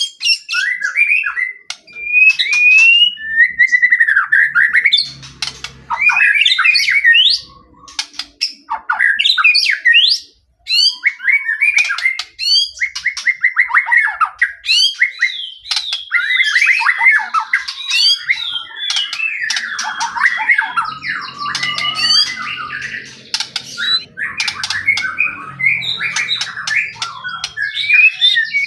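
White-rumped shama (murai batu) in full, nonstop song: a fast run of varied whistled phrases, rapid rattling trills, rising and falling glides and harsh chattering notes.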